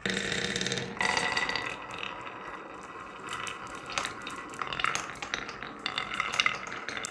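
Marbles rolling and clattering down a wooden marble run: a continuous rolling rush dotted with many sharp clicks as they strike the track and each other. It starts suddenly and swells about a second in.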